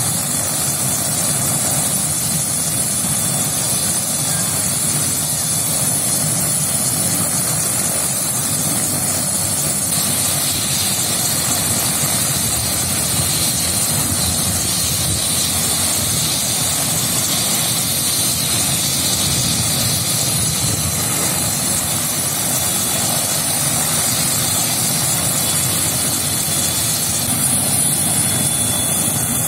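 OH-58D Kiowa Warrior helicopter running on the ground, its Rolls-Royce T703 turboshaft and rotor giving a loud, steady noise with a thin high turbine whine.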